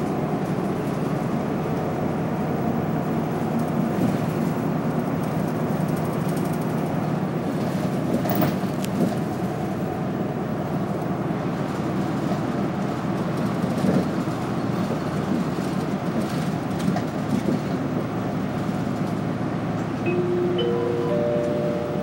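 City bus driving, heard from inside the passenger cabin: a steady engine hum and road noise. Near the end a short tone steps up in pitch.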